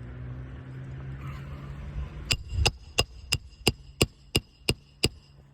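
Hammer striking a roof snake to drive a nail back in under an asphalt shingle: nine sharp metal blows, about three a second, each with a metallic ring, starting about two seconds in. A low steady hum runs underneath.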